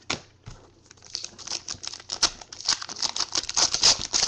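Trading cards being flipped through and slid against one another by hand: a dense run of quick papery clicks and scrapes that builds from about a second in.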